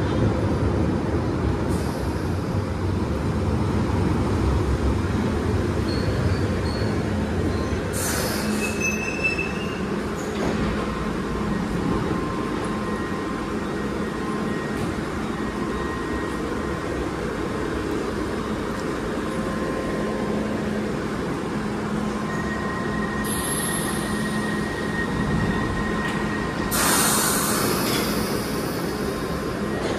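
A London Underground 1973-stock Piccadilly line train standing at a platform and then pulling away, with a steady running noise throughout. Its pneumatic doors give a short hiss of air about eight seconds in and a louder one near the end.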